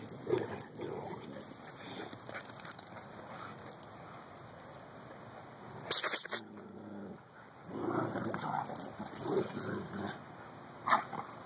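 Dogs growling and whining in rough play, most in a stretch about eight to ten seconds in, with a short sharp noise about six seconds in.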